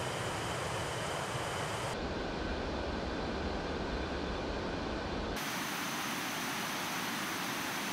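Synthesized jet-engine-like noise from a ZynAddSubFX synthesizer patch, a steady rushing hiss. About two seconds in, its tone jumps darker, the highs dropping away and the low rumble growing. A few seconds later it jumps bright and hissy again, with less low end, as the patch settings change.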